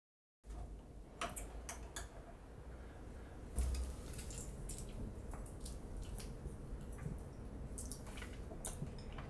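Faint wet, sticky mouth and tongue sounds with scattered small clicks, as mayonnaise spread on a tongue is eaten.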